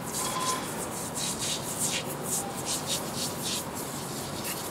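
Aerosol can of degreaser spraying in short hissing bursts, about two a second.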